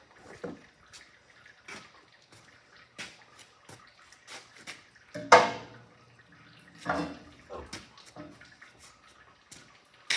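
Engine oil dripping and draining into a bucket in irregular drips, with two louder splashes or knocks, about five seconds in and again about two seconds later.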